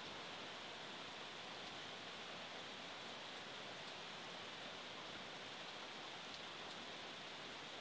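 Faint, steady hiss of light rain falling, with a few separate drops.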